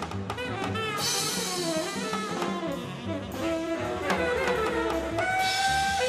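Upbeat jazzy music: a horn melody of held and sliding notes over a drum kit.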